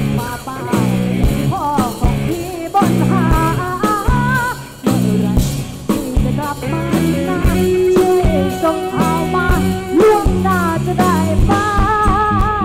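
Live band music with a singer: a sung melody over a steady drum beat and bass.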